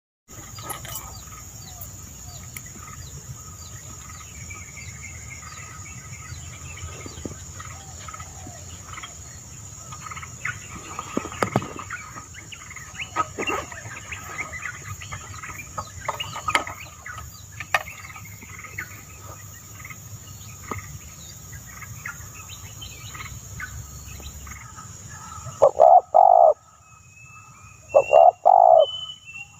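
Wild birds calling over a steady high insect drone, with scattered short chirps and whistles. Near the end a bird gives a loud, low call, twice, about two seconds apart, with a short higher whistle after each.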